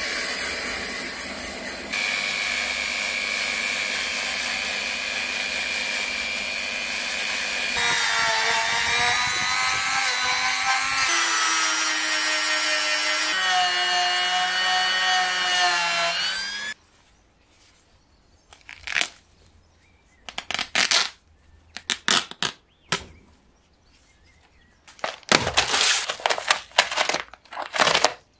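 Rotary tool with a felt polishing bit spinning against the knurled brass knobs of a kerosene stove's control spindles: a steady whine whose pitch steps up and down several times, rising just before it cuts off about 17 seconds in. After that, plastic packaging crinkles in short bursts as it is torn open.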